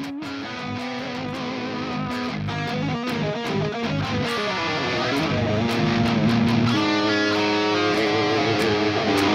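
Electric guitar riffs playing as intro music, growing steadily louder.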